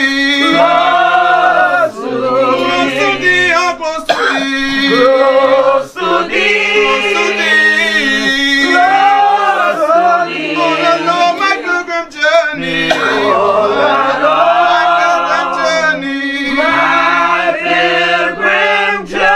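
A church congregation singing a slow hymn together without words being clear, several voices holding long drawn-out notes and moving between them.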